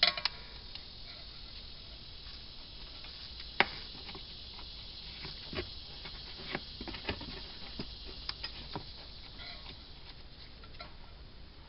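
Gloved hands working the brake pad wear sensor wire and its plastic clips back into place: scattered small clicks and taps, with one sharper click about a third of the way in and a cluster of lighter ones in the middle.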